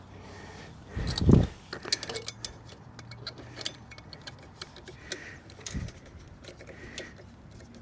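Small metal parts and hand tools clicking and clinking while a scooter's belt-drive transmission is put back together, with a louder dull knock about a second in.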